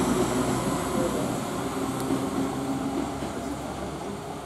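Class 172 Turbostar diesel multiple unit departing, its underfloor diesel engines running under power with a steady low hum and rumble that slowly fades.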